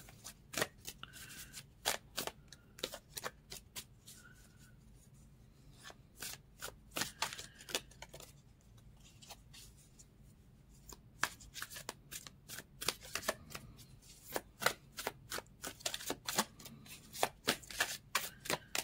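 A deck of tarot cards being shuffled by hand: quick runs of sharp card snaps and riffles, pausing twice for a couple of seconds.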